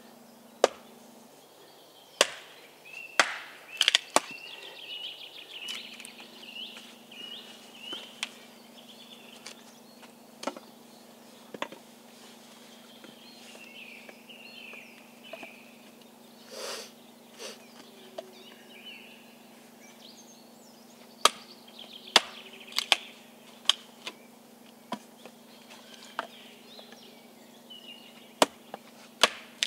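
Hatchet splitting short logs into kindling on a wooden chopping block: about a dozen sharp chops at uneven intervals, several in quick succession in the first few seconds and again over the last third.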